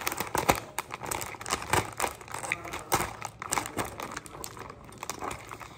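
Clear plastic Lego parts bag crinkling as it is handled and cut open with scissors: a run of irregular crackles and crinkles.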